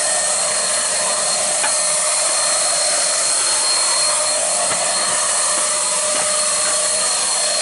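Handheld electric paint spray gun running steadily while spraying wood-protection paint: an even airy rush with a constant high whine.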